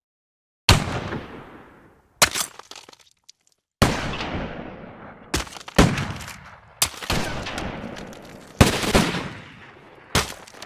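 Gunshots: about eight sharp cracks, irregularly spaced a second or two apart, each ringing out in a long echoing tail that fades before the next.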